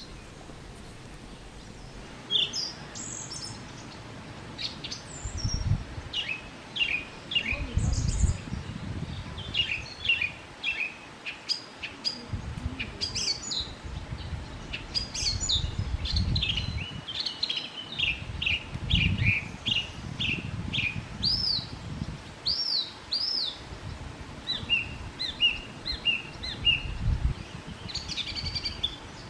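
Small birds chirping and singing: a busy run of short rapid chirps and whistled notes, with a few arched whistles and then a repeated short note near the end. Low rumbles come and go underneath.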